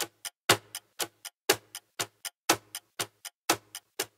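Clock ticking, about four ticks a second, with a louder tick once each second.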